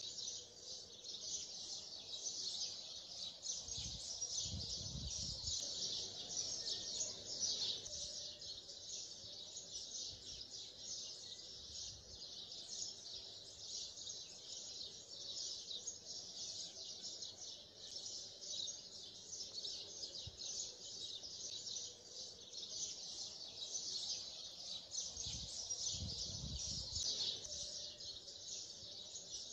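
Many birds chirping in a dense, continuous chorus, a calm birdsong background. Two brief low rumbles come through, about four seconds in and again near the end.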